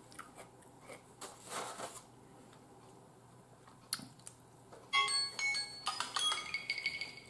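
A timer alarm going off about five seconds in: a chiming, marimba-like ringtone of bright repeated notes at several pitches. Before it, only faint clicks and mouth sounds of eating.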